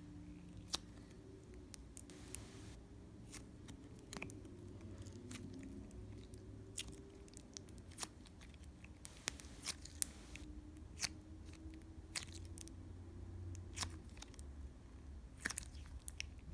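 Slime being handled by hand, giving scattered faint clicks and pops over a low hum.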